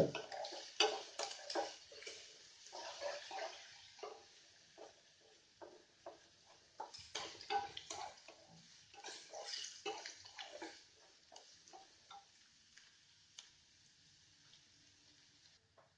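Chopped onions frying in hot oil in a pan with a faint sizzle, stirred with a spatula in irregular bouts of scraping and clicking against the pan. The stirring thins out to a few light ticks in the last few seconds.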